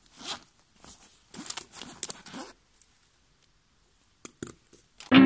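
Zipper of a fabric pencil case being pulled open in several short strokes, with rustling as the case is handled, then two small clicks about four and a half seconds in. Guitar music comes in at the very end.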